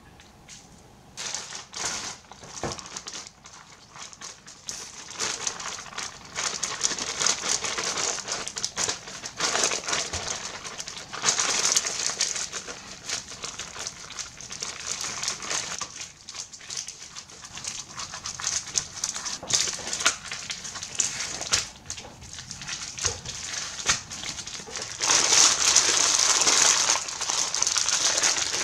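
Crinkling, crackling handling noise that comes and goes in waves, loudest near the end.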